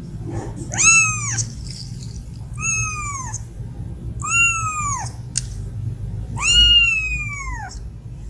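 Young kitten meowing four times: high-pitched calls that each rise and then fall in pitch, the last one the longest.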